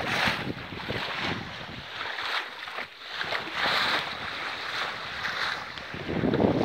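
Racing sailboat's bow driving through the sea: water rushing along the hull and spray splashing, swelling and easing in surges.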